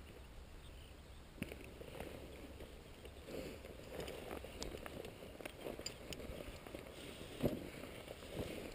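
Footsteps and rustling in dry grass: irregular soft scuffs and ticks, with a louder knock about seven and a half seconds in, over a low steady rumble.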